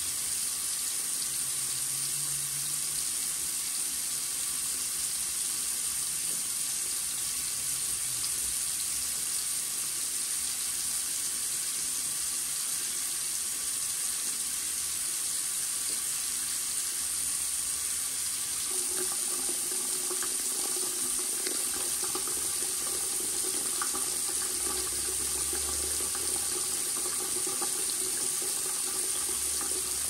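Bathroom sink faucet running a steady stream of water into the basin and down the open drain: an even, unbroken hiss of running water.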